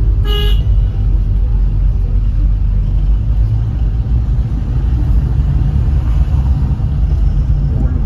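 Car driving slowly on a town street: a steady low rumble of engine and road noise, with a short car-horn toot about half a second in.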